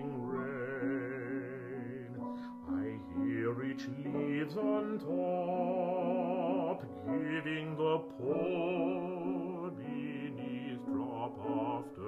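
A baritone singing a slow art song with vibrato, in phrases with short breaks between them, accompanied by piano.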